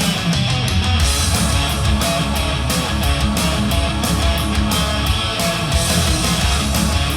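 Recorded rock music with electric guitar and a steady beat, played back through a digital-to-analog converter for a listening comparison.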